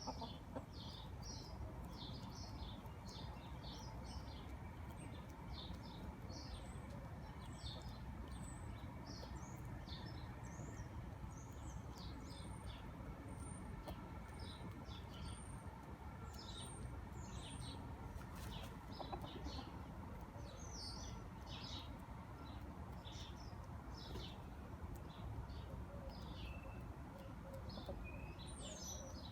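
Small wild birds chirping: many short, high calls, one after another, over a steady low background rumble.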